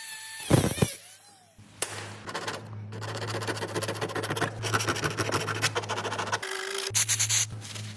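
Background music with a steady low hum, over irregular clicking and rubbing from hand-tool work.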